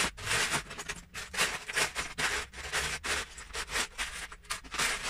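Loose plastic Lego bricks clattering and rattling as hands rummage through a plastic storage tub full of them: a rapid, irregular run of small clicks and scrapes.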